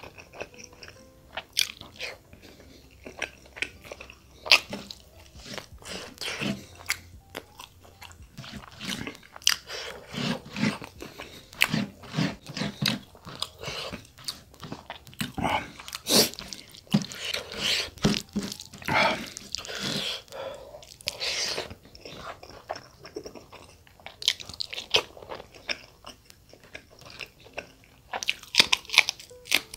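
Close-miked mouth sounds of a person eating chicken curry and rice by hand: wet chewing, smacking and biting in an irregular stream, with a run of crisp, crunchy bites near the end.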